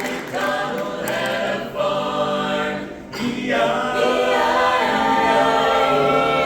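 A cappella vocal group singing in close harmony: a few short phrases, then one long held chord from about three and a half seconds in.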